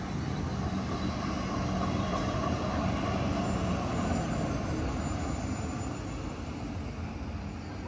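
Steady rumbling vehicle noise, growing louder over the first few seconds and then slowly fading.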